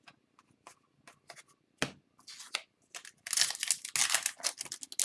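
Scattered light clicks and a sharp tap, then from about three seconds in a loud crinkling rip as a foil trading-card pack wrapper is torn open.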